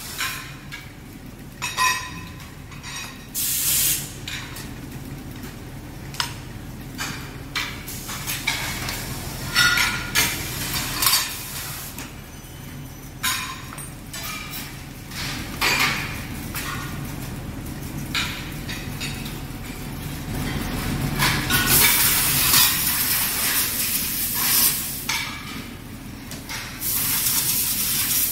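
Metal mould trays clanking and clinking as they are set down and handled on a steel workbench, over a steady low machine hum. A steady hiss comes in about two-thirds of the way through and again near the end.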